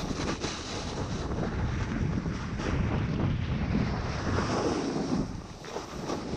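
Wind rushing over a GoPro's microphone during a fast snowboard descent, mixed with the board sliding and carving over groomed snow, easing briefly near the end.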